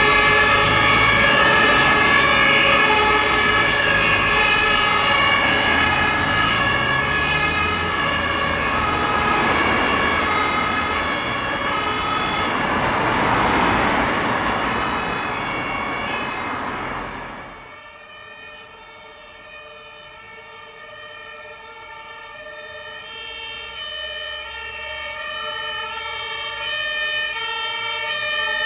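German two-tone emergency vehicle sirens (Martinshorn), several sounding at once, with vehicle engine and road noise swelling about thirteen seconds in. The sound drops off abruptly a few seconds later, leaving a fainter siren that grows steadily louder toward the end.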